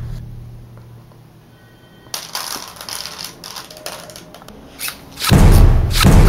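Soft clicks and rustling of a scuffle, then about five seconds in a loud, deep, pounding sound sets in and keeps going.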